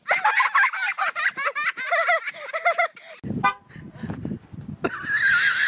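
High-pitched, wavering vocal squeals in quick bursts. After a brief break a little past halfway, a long squeal follows whose pitch wobbles up and down.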